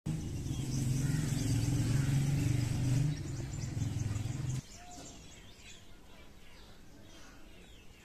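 Small birds chirping and tweeting over a steady, low engine-like hum. The hum cuts off suddenly about halfway through, leaving only faint chirps.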